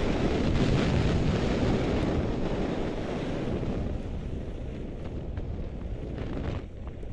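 Wind rushing over a goggle-strap-mounted action camera's microphone while skiing downhill, with skis sliding on packed snow. The rush eases off as the skier slows, then drops away suddenly near the end.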